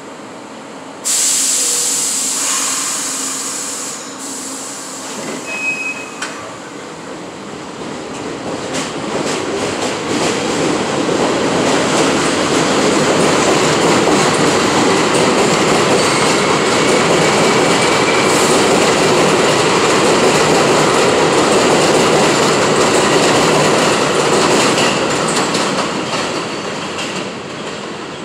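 New York City subway R62A train on the 6 line pulling out of the station. A sudden loud hiss of air comes about a second in. Then the train's running and wheel noise builds, holds loud, and fades near the end as it leaves.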